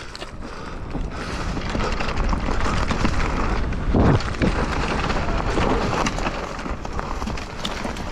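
Mountain bike being ridden fast down a rough, rooty trail: wind rushing over the microphone with tyre and frame noise and scattered knocks. It builds over the first couple of seconds, and the heaviest knock comes about four seconds in.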